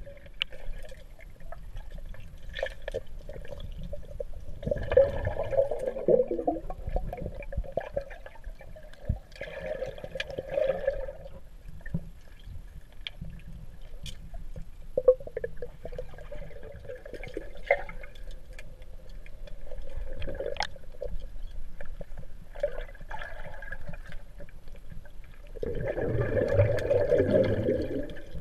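Underwater ambience picked up by a camera submerged in a swimming pool: a steady low rumble and faint hum, with gurgling bursts of air bubbles from the swimmer exhaling, about five and ten seconds in and a longer, louder burst near the end.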